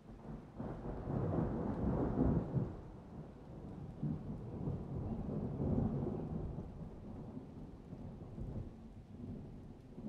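Irregular low rumbling and buffeting from the phone's microphone as the phone is handled and carried, loudest in the first few seconds and easing off after.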